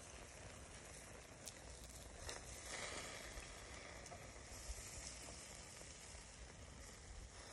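Sauced pork steaks and chicken breasts sizzling faintly on a wire grill over charcoal, a steady hiss with a few small pops.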